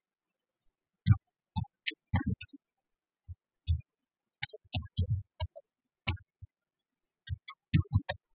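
Computer keyboard typing: a run of sharp key clicks that starts about a second in, in uneven bursts with short pauses.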